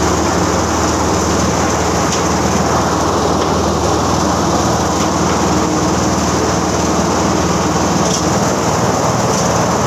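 Rotary drum chicken-plucking machine running steadily: a constant low motor hum with a hiss above it.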